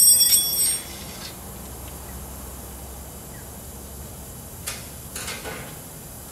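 Sheet-steel side panel of a hydraulic shear clanging and ringing with several bright metallic tones as it is pulled off the machine frame, dying away within a second. Two brief scrapes of metal on metal follow near the end.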